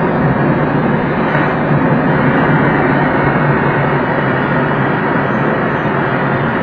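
Steady rushing noise of air streaming over a glider's cockpit canopy in flight, even and unbroken.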